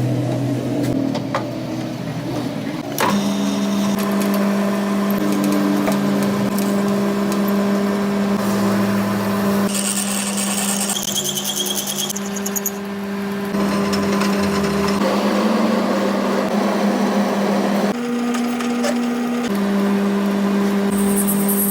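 Workshop power tool or machine running steadily with a low hum that shifts in pitch a few times, along with scraping tool noise.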